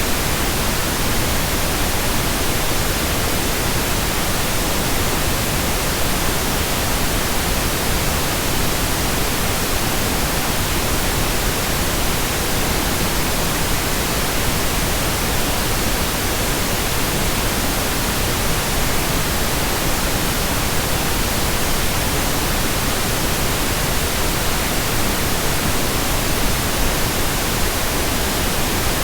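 Steady, unchanging pink noise: an even hiss with no events.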